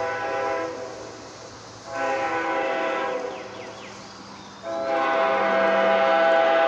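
Nathan Airchime K5HL five-chime train horn, bells 1L,1,2,3,4, sounding its chord in blasts. One blast dies away in the first second, a second starts about two seconds in and cuts off about a second later, and a steady third blast starts near five seconds in and holds.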